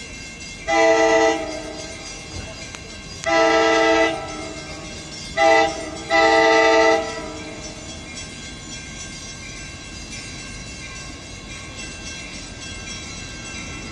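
Freight locomotive's multi-chime air horn sounding four blasts, long, long, short, long: the grade-crossing warning signal. A low steady rumble of the approaching train continues under and after the blasts.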